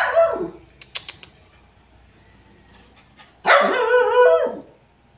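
Dog barking in play: a sharp bark at the very start that slides down in pitch, then a longer, louder wavering bark-whine about three and a half seconds in. A few sharp clicks come about a second in.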